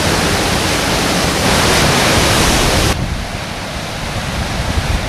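Waterfall's rushing water, a loud steady rush of white water. About three seconds in it drops abruptly to a softer, duller rush.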